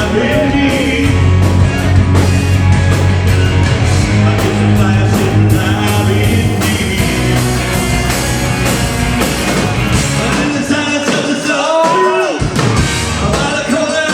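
Melodic rock band playing live: a steady drum beat, heavy bass, guitars and keyboards under a lead vocal. About ten seconds in, the low bass drops back and a gliding melody line stands out above it.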